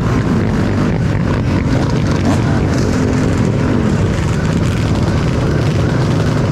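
An engine running steadily at a constant, loud pitch.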